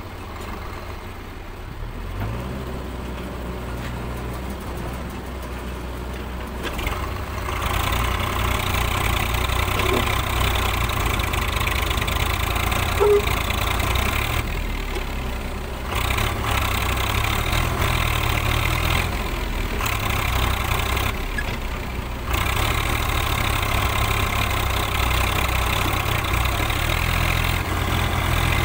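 Diesel tractor engine running under heavy load as it strains to pull a loaded trailer out of soft soil, with a steady low rumble. The engine gets louder about a quarter of the way in, then swells and eases several times.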